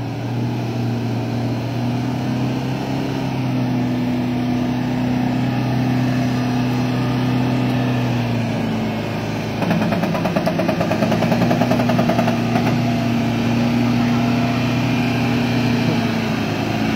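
Toyota Hilux pickup's engine running steadily under load as the truck crawls through deep mud. About halfway through the engine note dips and a rapid rattling pulse comes in for a few seconds, then the engine settles back to a steady drone.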